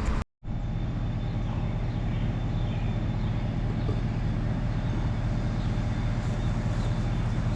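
A truck's engine running steadily, a low even drone with road or cab noise, after a brief cut to silence just after the start.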